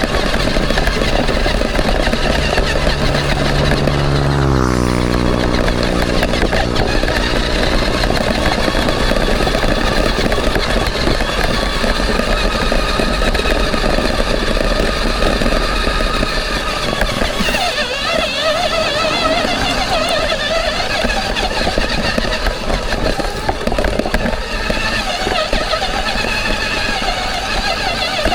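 Homemade 4x4 RC truck's motor and drivetrain running with a steady whine, rising in pitch about four seconds in as it speeds up.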